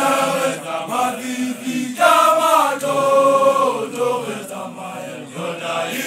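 A group of voices chanting a song together, with a louder voice holding a long, slowly falling note from about two seconds in.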